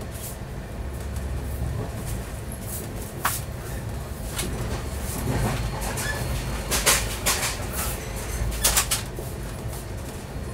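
Steady low rumble heard from inside a moving vehicle, with sharp rattles and knocks: one about three seconds in, another a second later, and louder clusters around the middle and again near the end.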